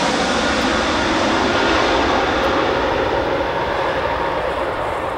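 Airbus A320 jet airliner's engines at approach power, a loud rush with a faint steady whine as the plane passes just overhead on final approach, gear down. The sound slowly fades and loses its hiss as the jet moves away toward the runway.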